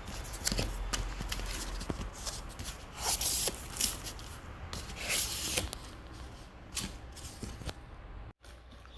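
Hands handling and opening a parcel: scattered light taps and clicks, with louder rustling swishes of packaging about three and five seconds in.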